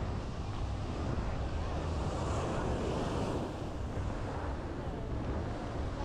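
Wind noise on the microphone over the wash of small waves breaking on a sandy beach, swelling a little about halfway through.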